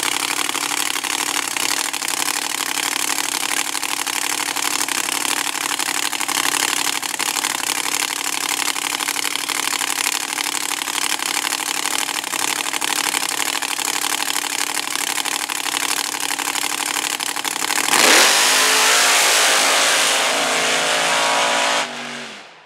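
Mega truck engines idling loud and steady at the starting line, one of them supercharged. About eighteen seconds in they launch at full throttle, a sudden louder rush with the engine pitch climbing, which cuts off abruptly near the end.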